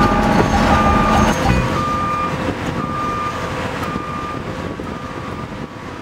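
Backup alarm on heavy construction equipment beeping about once a second over machinery engine noise, the engine rumble dropping away about a second and a half in and everything gradually fading.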